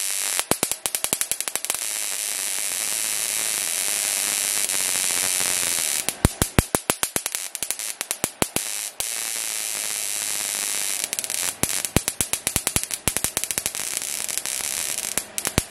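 Small high-voltage electric arc jumping between two electrodes, hissing and crackling, with runs of rapid sharp snaps about halfway through and again later on.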